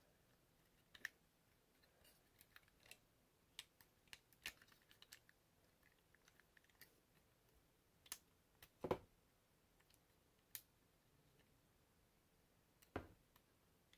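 Scattered faint clicks and snaps of a Transformers Snapdragon figure's plastic parts being moved and pushed into place by hand, with two louder, duller knocks, one about two thirds of the way through and one near the end.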